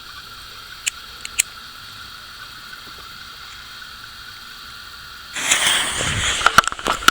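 A few faint clicks, then about five seconds in a TNT firework fountain ignites: a sudden loud hissing spray with sharp cracks and pops in it.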